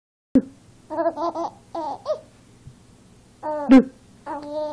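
A baby laughing and squealing in short bursts of high-pitched giggles, set off by an adult playfully saying "boo".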